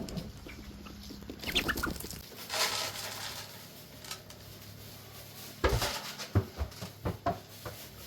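Chickens clucking and calling, with rustling and a cluster of sharp knocks and thuds in the second half.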